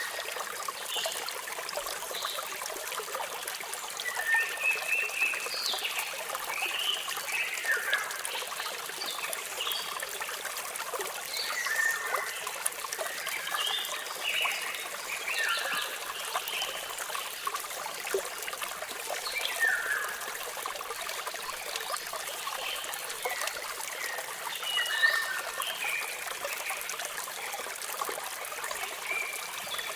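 Steady rush of falling water with birds chirping over it: short, often falling chirps come every second or two.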